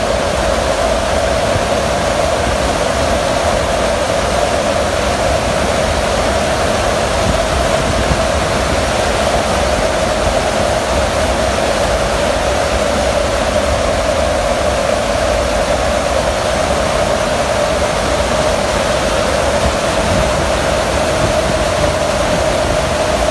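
Steady roar of rushing air and aircraft engine drone in the open cargo hold of a military transport plane in flight, with its rear ramp lowered. A continuous drone holds steady beneath the wind noise.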